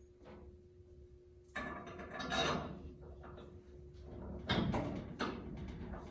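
Metal parts of a car frame being handled in a shop: a few clunks and scrapes, the loudest about one and a half and four and a half seconds in, over a faint steady hum.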